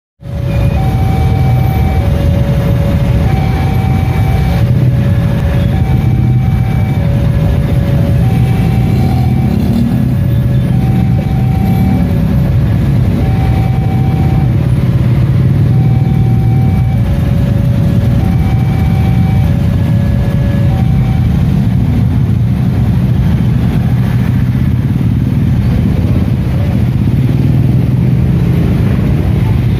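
Level-crossing warning bell sounding a repeating two-tone signal, a lower tone then a higher one about every two and a half seconds, while the barrier is down for a passing train. It stops about 21 seconds in as the crossing clears. Under it is a steady low rumble of the passing train and idling road traffic.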